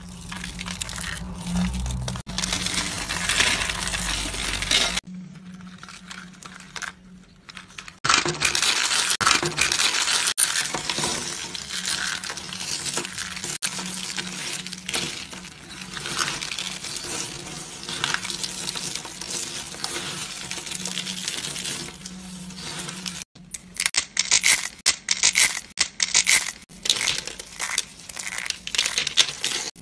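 Hands crushing and crumbling dry, brittle soap shavings and curls: dense, crisp crackling and crunching. Toward the end the crunches come in separate quick squeezes.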